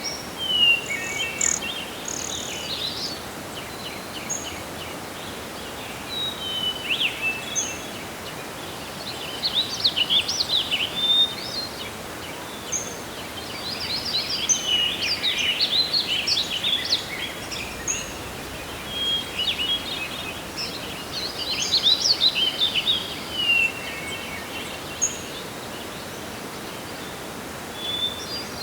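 Forest ambience: several wild birds chirping and trilling in overlapping bursts, with the busiest stretches about ten, fifteen and twenty-two seconds in. Underneath runs a steady hiss of wind.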